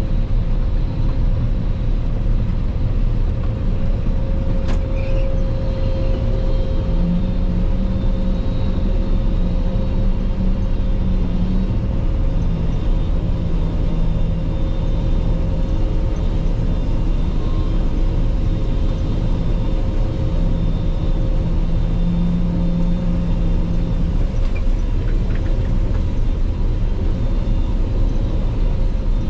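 Claas Lexion 480 combine harvester running steadily while harvesting rapeseed: a loud, even low drone with a constant whine on top. A lower hum joins about a quarter of the way in and fades out after about two thirds.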